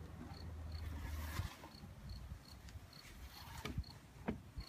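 A cricket chirping steadily, short high chirps about twice a second. Under it, low rumbling and a few knocks from the fabric drone carrying case being handled.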